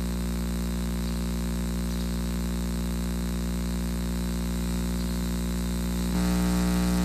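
Steady electrical mains hum and buzz on a wired microphone's line, a stack of even tones that steps up louder about six seconds in: interference on the audio feed.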